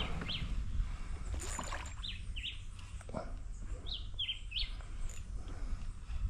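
A bird calling in short, sliding chirps, in three small groups of one to three notes, over a steady low rumble.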